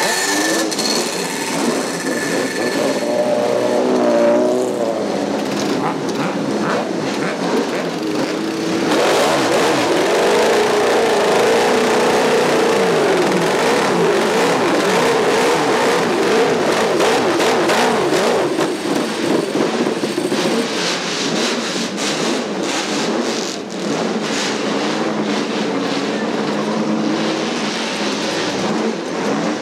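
Race motorcycle engines running and being revved, their pitch rising and falling again and again.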